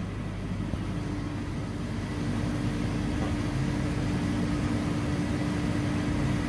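Cold-storage chiller unit running: a steady mechanical hum of fans and refrigeration machinery, with a steady tone joining about a second in.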